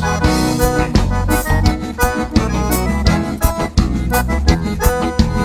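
Accordion playing an instrumental break in a gaúcho bugio tune, over a steady beat from the band.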